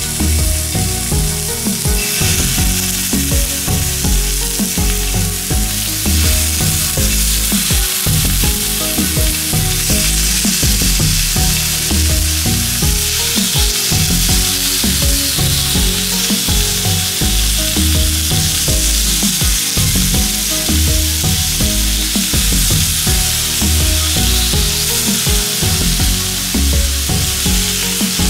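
Raw chicken strips sizzling on the hot non-stick dome grill plate of a Silvercrest 2-in-1 tabletop grill with hot pot. The sizzle is steady and gets louder about two seconds in as more pieces go onto the plate.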